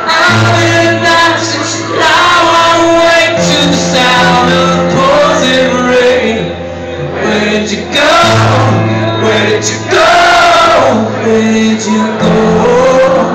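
Live music from an acoustic rock performance: singing over sustained low notes that change every couple of seconds.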